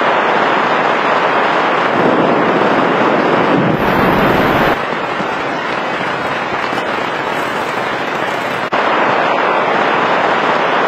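Heavy rain pouring down in a dense, steady crackling hiss, with a deeper rumble for about a second a little before the middle. The rain drops slightly in level about halfway through and comes back up abruptly a little before the end.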